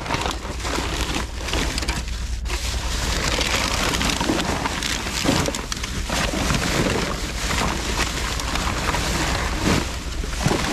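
Black plastic garbage bags crinkling and rustling as gloved hands push them aside and rummage through the rubbish, a continuous dense crackle.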